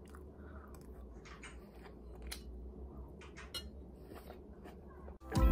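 Faint scattered light clicks and taps over a low steady hum, with background music starting suddenly right at the end.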